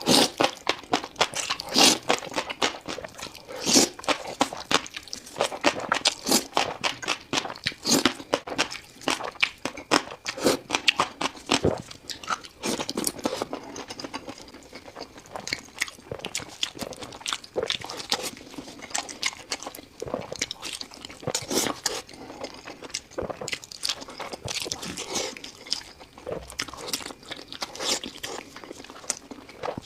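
A person eating close to the microphone: continual crunching, biting and chewing with many sharp crackles.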